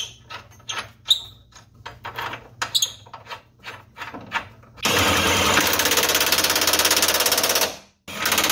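Light metallic clicks and taps as a bolt is started by hand, then a Kobalt cordless impact tool hammering the bolt in for about three seconds. It stops briefly and starts hammering again near the end.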